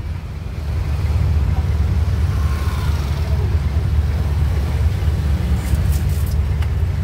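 Jeepney's diesel engine idling at a stop, a steady low rumble heard from inside the open passenger cabin.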